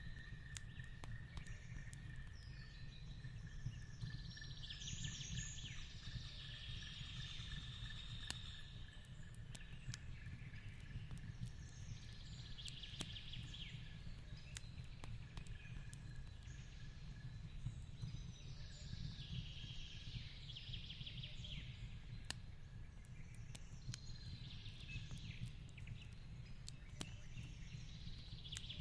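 Faint fireplace crackling, with scattered sharp pops over a low steady rumble. Short bursts of birdsong come every several seconds, and a thin steady tone fades out about halfway through.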